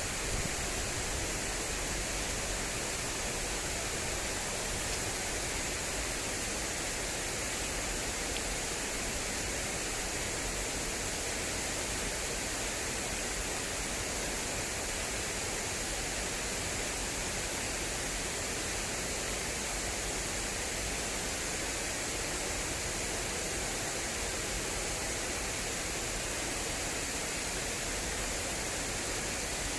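Fast-flowing water rushing steadily along an irrigation channel: a continuous, even hiss.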